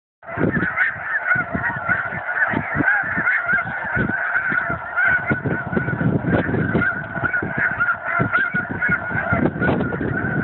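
A large flock of snow geese calling: a dense, unbroken chorus of overlapping honks and yelps, over a low, uneven rumble.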